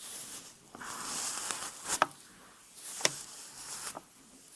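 A comb drawn through hair in a few swishing strokes, with a sharp snap about two seconds in and another about three seconds in.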